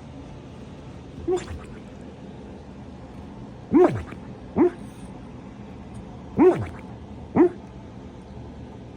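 Dog snoring: five short, pitched, gurgling snores, each falling in pitch. One fainter snore comes early, then two pairs follow about a breath apart.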